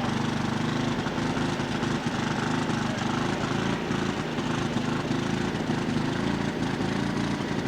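Small gasoline engine driving a salvage dewatering pump, running steadily at an even speed.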